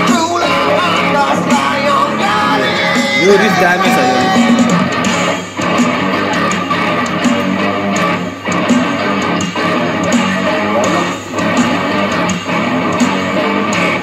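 Rock band playing: electric guitar over bass and drums, with some singing. The band drops out briefly about every three seconds.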